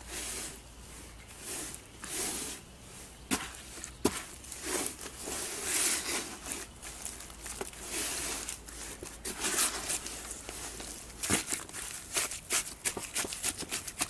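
Gloved hand squishing and kneading a cloth in thin wet cement slurry in a plastic tub, with irregular wet swishes and a few sharp clicks.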